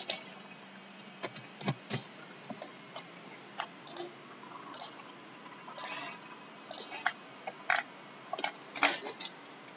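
Irregular run of short, light clicks from a computer mouse and keyboard, about twenty in all, as settings are clicked through and entered in CAM software.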